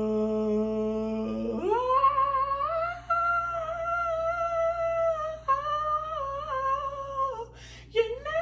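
A man singing unaccompanied, trying for a high note: he holds a low note, then slides up about a second and a half in to a high held note that wavers and falls away near the end. A few clicks follow.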